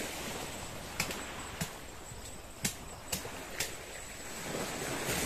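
A string of sharp clicks or snaps, roughly one a second and irregular, over a thin steady high tone and faint hiss; near the end a wash of surf noise swells up.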